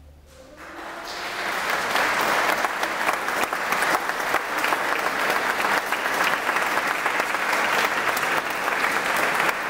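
Audience applauding: the clapping starts about half a second in, swells within a couple of seconds and then holds steady and loud.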